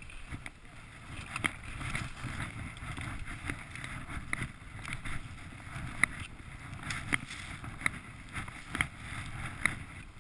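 Skis running downhill through powder snow with wind rushing over the microphone, and short sharp ticks about once a second.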